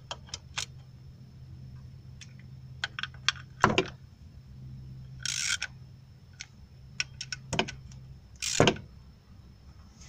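Ratchet wrench snugging the 10 mm bolts of a Nissan 2.5 L balancer chain tensioner: irregular short runs of ratchet clicks and metal clinks, with two brief rustling scrapes of the hand and tool. The bolts are only lightly tightened, to a low inch-pound torque.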